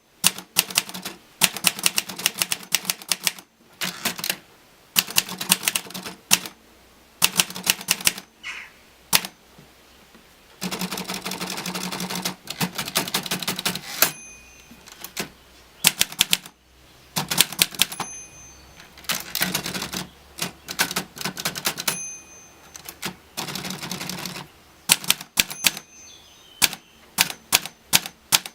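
Olivetti Lettera DL manual typewriter being typed on, with quick runs of key strikes in bursts and short pauses between them. There is a denser stretch of clatter about halfway through and a brief ringing tone three times.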